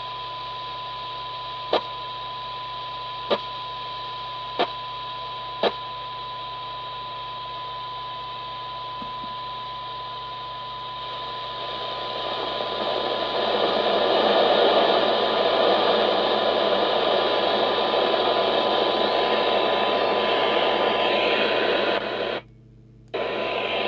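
A Midland M5 FM CB radio's speaker plays a steady 1 kHz test tone from a signal generator, over receiver hiss. About halfway through the hiss swells loud and nearly buries the tone as the signal is turned down to the limit of the receiver's sensitivity, about 0.1 microvolt. Four short clicks come in the first six seconds, and the sound cuts out briefly near the end.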